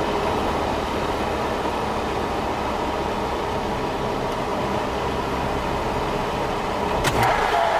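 Steady road and engine noise of a car on the move. About seven seconds in comes a sudden crash impact, followed by a held steady tone.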